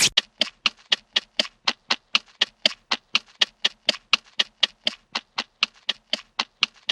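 Hanna-Barbera cartoon running sound effect: a rapid, even series of light taps, about five a second, standing for a character's quick footsteps.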